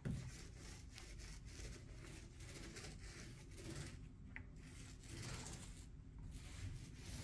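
Faint rubbing and swishing of a small paint roller spreading wet varnish over a decorative plaster panel.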